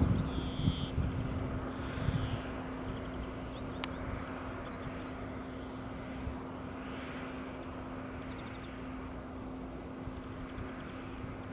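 Airbus A320 jet engines running steadily in the distance: a broad, even rush with a constant hum beneath it. Wind buffets the microphone in the first couple of seconds, and short high bird chirps come and go.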